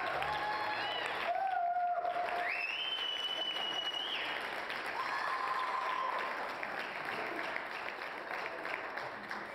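Wedding guests clapping in steady applause, with a few held high-pitched tones over it in the first half, and the clapping slowly dying down near the end.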